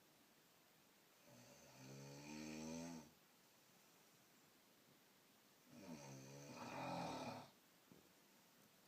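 A person snoring: two long, pitched snores about four and a half seconds apart, each growing louder over nearly two seconds and then stopping sharply.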